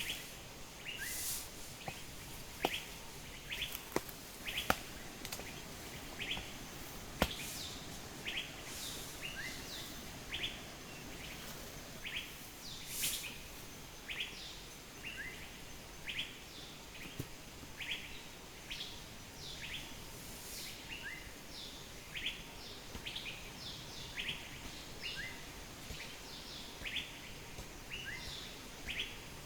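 A bird chirping over and over, short falling chirps about once a second, over a steady background hiss. A few sharp clicks sound in the first several seconds.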